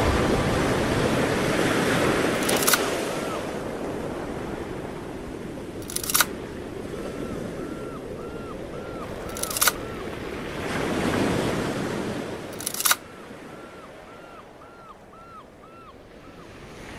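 Ocean surf washing over rocks, with some wind, swelling and easing and fading down over time. Four sharp camera-shutter clicks come about three and a half seconds apart, and between them there are runs of short chirping calls.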